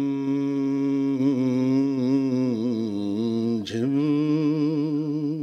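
A man's solo voice singing a devotional Urdu naat, drawing out long held notes with a wavering vibrato; about two-thirds of the way through the note breaks briefly and he sets off on another long held note.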